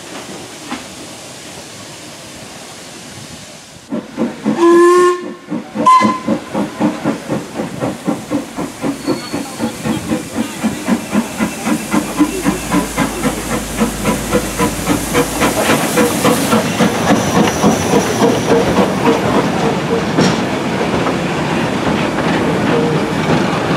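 Industrial saddle-tank steam locomotive starting away with its train: a short whistle blast about four seconds in and a brief second toot, then steady exhaust chuffs that quicken and grow louder as it pulls out.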